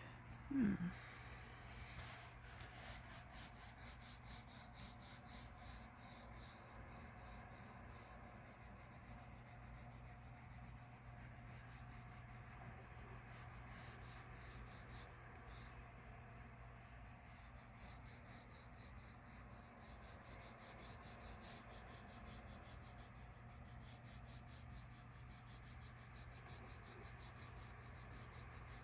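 Faint scratching of a pencil shading on paper, under a steady low hum.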